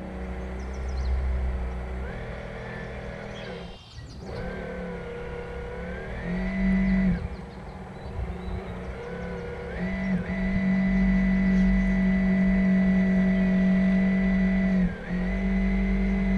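RC model container ship's drive motor whining through the hull, its pitch and loudness rising and falling with the throttle: it cuts out briefly about four seconds in, drops back around seven seconds, then climbs and holds steady from about ten seconds with a short dip near the end. A low rumble runs beneath it.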